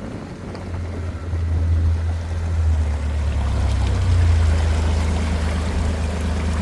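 Floodwater rushing through and over a driveway culvert, a steady rushing noise under a strong low rumble that grows louder about a second in.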